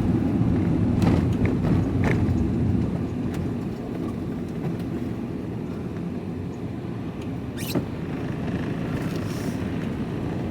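Vehicle engine and road noise heard from inside the cab while driving, a steady low rumble that eases off after about three seconds, with a few faint clicks.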